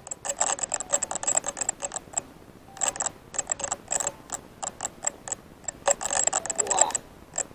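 Rapid, irregular sharp clicks and ticks, several a second, with short lulls about two and seven seconds in.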